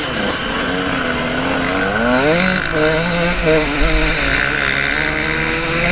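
Dirt bike engine revving, its pitch rising about two seconds in and then holding with small up-and-down changes as the throttle is worked.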